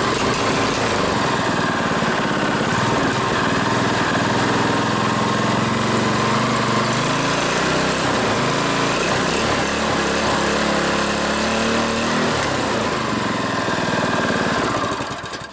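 Small single-cylinder 7 hp 209cc four-stroke OHV engine running on a go-kart, its pitch rising and falling in the middle, then cutting off near the end.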